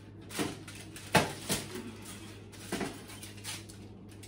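Kitchen handling sounds as a raw salmon fillet is taken from its plastic package and laid on a foil-lined baking sheet: a few short crinkles and knocks of plastic, foil and metal pan, the sharpest about a second in. A steady low hum runs underneath.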